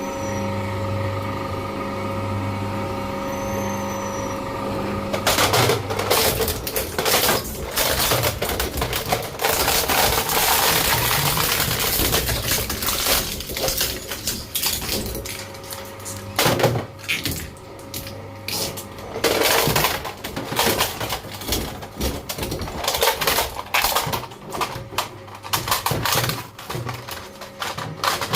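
Shredder machine's motor running with a steady hum, then from about five seconds in, plastic of a Nerf toy gun cracking and crunching as the shredder's blades chew through it, in dense irregular snaps over the continuing hum.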